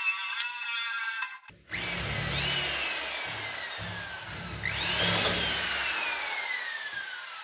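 Background music for about the first second and a half, then an electric drill drilling into steel. The drill is run up twice, and after each run-up its motor whine falls slowly as the drill coasts down.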